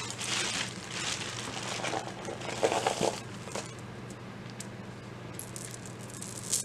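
Rustling as hands handle jewelry, with a few light metal clicks of bangle bracelets about three seconds in and one sharp click near the end.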